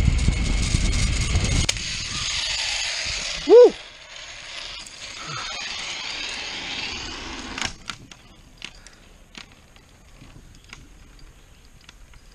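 Zipline trolley pulleys running fast along the steel cable with wind rushing past. The noise drops suddenly about two seconds in as the ride slows, and goes on more softly until the arrival at the platform, with a brief whoop near four seconds. After that it is quiet, with a few scattered light metal clicks.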